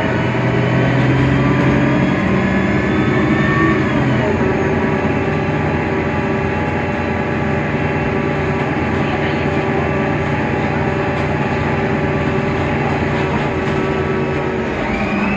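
Mercedes-Benz Citaro O530 Ü bus with an OM 906 hLA straight-six turbodiesel and Voith DIWA automatic gearbox running under way: a rising whine over the engine that drops sharply about four seconds in, then a steady run, and another rising whine near the end.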